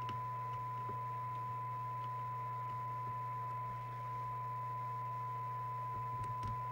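Steady single-pitched test tone of about 1 kHz from the Binatone 5-star CB radio's speaker as it receives a signal generator's modulated test signal during receive alignment, over a low steady hum. A few light clicks come from the alignment tool on the transformer cores, near the start, about a second in and near the end.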